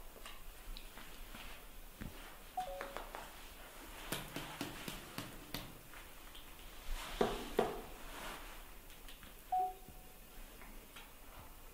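Two short squeaks from a young animal, each stepping down in pitch, one about two and a half seconds in and one near the end, amid soft scuffling and a few light knocks.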